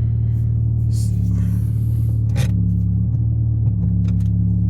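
Mitsubishi Lancer Evolution X's turbocharged four-cylinder engine idling steadily as it warms up after sitting for a while.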